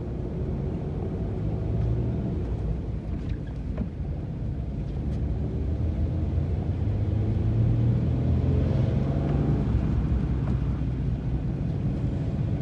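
Car engine and road noise heard from inside a moving vehicle, a steady low rumble whose engine note slowly rises and falls.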